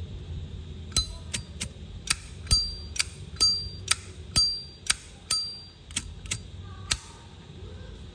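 A Zippo lighter's hinged metal lid clicked open and snapped shut again and again: about fourteen sharp metallic clicks over six seconds, several leaving a brief high ring.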